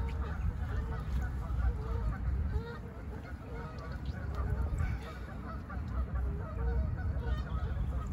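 Geese honking repeatedly, short calls one after another, over a low rumble.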